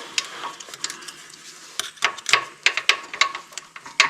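Metal parts clinking and clicking irregularly as a hydraulic filter part is pushed and worked into its housing on a Gravely zero-turn mower, checking that it seats. The clicks are sparse at first and come thick and loud from about halfway.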